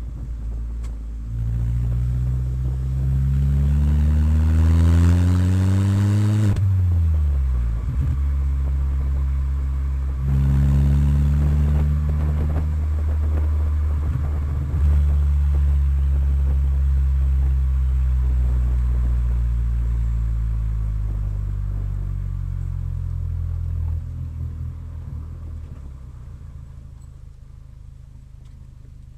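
Chevrolet Vectra engine rumbling through its exhaust as it is revved: the pitch climbs steadily for about six seconds, drops off sharply, then jumps up again about ten seconds in and holds steady before falling back to a lower, quieter note near the end.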